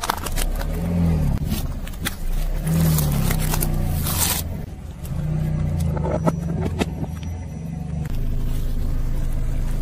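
Car engine running slowly while the tyre rolls onto and crushes small objects: sharp cracks and snaps, with a longer crackling crunch about three to four seconds in as woven wicker balls give way under the tyre.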